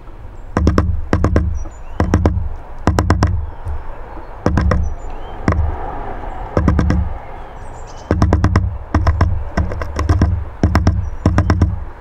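Great tit hammering with its bill on the wooden feeder house: quick bursts of two to four sharp taps, each with a hollow wooden thud, about one burst a second, fewer for a few seconds midway. Faint high bird calls between the bursts.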